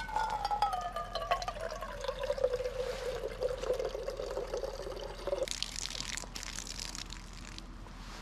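Water pouring from the spout of a hanging water-carrier bag into a camp mug, its tone sinking steadily in pitch for about five seconds. The flow stops abruptly about five and a half seconds in, and a second or so of rustling and knocking follows.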